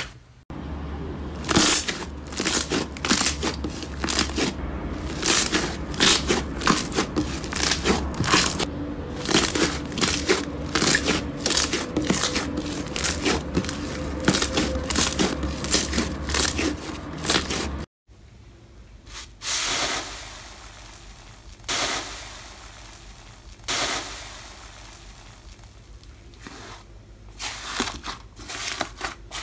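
Hands squeezing, kneading and poking slime: a dense stream of small sticky pops and crackles over a low hum. About two-thirds through it cuts off and turns quieter, with a few separate louder squishes and more crackling near the end.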